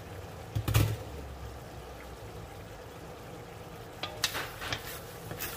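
Stew simmering in a large aluminium wok with a steady low bubbling. A single loud knock comes about a second in. From about four seconds, a wooden spatula stirs the stew and clicks and scrapes against the wok.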